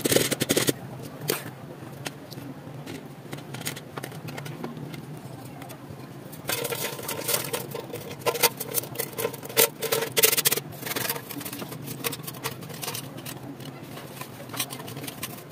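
Irregular clicks, taps and scraping from hand work, busier and louder for a few seconds in the middle.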